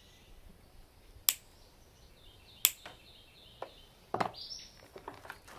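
Wire cutters snipping through the wires of a power cord: two sharp snips about a second and a half apart, then a lighter click and a cluster of small clicks and handling noise near the end.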